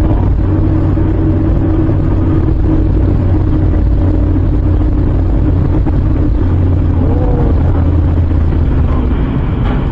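Steady drone of a moving vehicle's engine and road noise, with a constant low hum.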